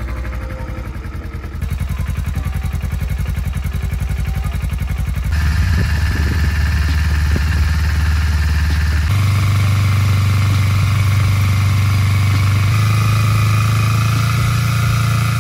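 A 2010 Kawasaki Ninja 250R's parallel-twin engine idles steadily with the choke fully on, warming up after a cold start. The idle note jumps abruptly a few times through the stretch, settling into a steady, higher hum in the later part.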